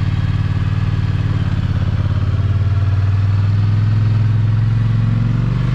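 Polaris Sportsman 850 ATV engine idling steadily. Its pitch rises slightly about a second and a half in and holds there.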